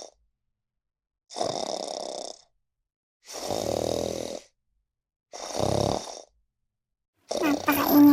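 A dog snoring: three slow snores, each about a second long, with silent pauses between. Near the end, louder music starts.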